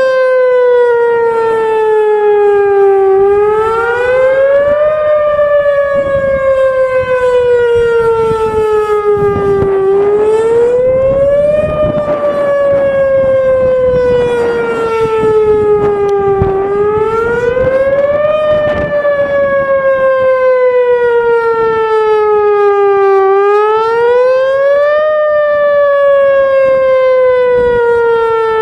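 Whelen Vortex R4 outdoor warning siren sounding a wail on test: its pitch climbs quickly over about two seconds, then sinks slowly for about five, four times in a row.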